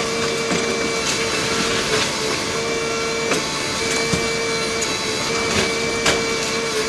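Kobelco SK220LC hydraulic excavator demolishing a masonry building, heard sped up fourfold: a steady high-pitched machine hum over a constant hiss. Sharp knocks and cracks of breaking debris come about once a second.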